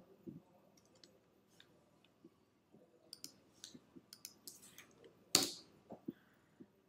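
Faint, scattered clicks of a computer mouse and keyboard as a command is copied, pasted into a terminal and run. There is one louder, short noise a little after five seconds in.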